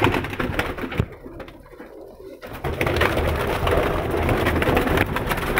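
Pigeons cooing in a loft. About two and a half seconds in, a loud, continuous rustling and scuffing noise starts and stays on top.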